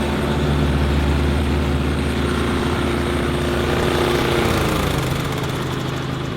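Lawn mower engines running steadily on a riding mower fitted with two push mowers as extra decks. About four and a half seconds in, the pitch of one engine drops as it slows down.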